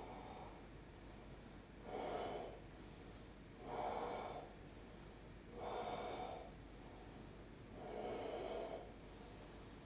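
A person breathing audibly and rhythmically through the throat during ashtanga yoga practice, with a hissing breath about every two seconds.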